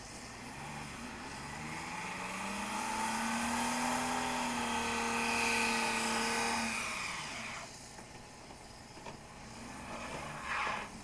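Pickup truck engine revving up in the deep snow, its pitch rising over the first few seconds and then held high for several seconds before it drops away about seven to eight seconds in. A short rushing noise follows near the end.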